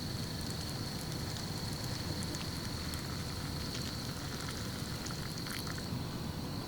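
Steady rain with scattered drops ticking sharply, over a low rumble and a thin, steady high-pitched tone.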